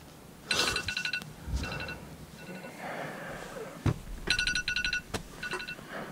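An electronic ringing tone of rapid pulses, like a telephone ringing, in two bursts about four seconds apart, each followed by fainter repeats. A dull thump comes just before the second burst.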